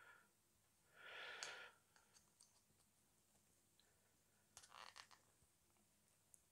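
Near silence, with a soft breath about a second in and a few faint clicks near five seconds in, from small plastic model parts being pressed into place.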